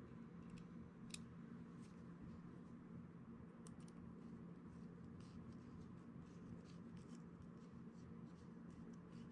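Faint, scattered small clicks and light scratches of a folding knife's small parts being handled during reassembly, over a steady low hum.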